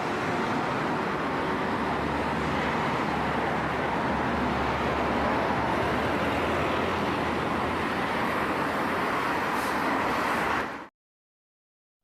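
Bus running, a steady engine and road noise with a low hum, which cuts off suddenly near the end.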